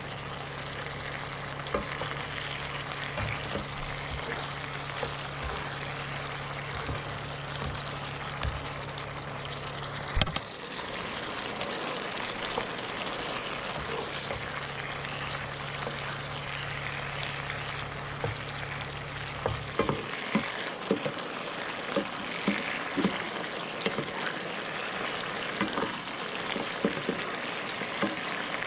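Fish fillets simmering in a bubbling sauce in a nonstick frying pan, sizzling steadily while a spatula stirs and knocks against the pan. A low hum stops about two-thirds of the way through, after which the spatula knocks come more often.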